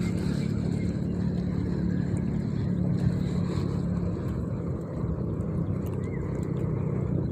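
An engine running steadily, a low hum that holds one pitch throughout.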